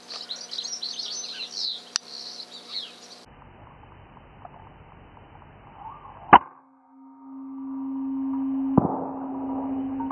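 Small birds chirping for about three seconds. Then an FX Impact M3 .22 PCP air rifle fires a slug: one sharp shot about six seconds in. A steady low hum follows, and a second sharp knock comes near nine seconds.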